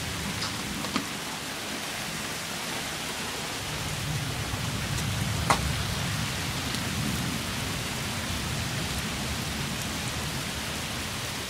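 Steady rain falling, an even hiss, with a single sharp click about five and a half seconds in.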